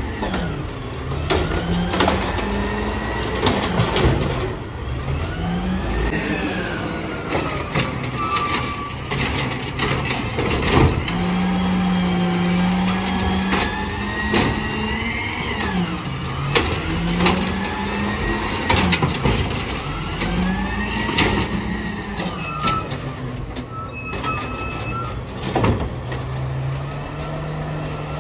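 Compressed-natural-gas Peterbilt 320 refuse truck working its Amrep HX-450 automated side-loader arm: the engine revs up and drops back again and again as the hydraulic arm lifts, dumps and lowers carts, with a hydraulic whine and sharp clunks of the carts and arm. Air-brake hisses come in now and then.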